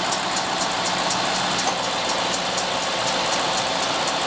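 2003 Cadillac DeVille's Northstar V8 idling steadily, with a steady low hum and a light, regular rapid ticking.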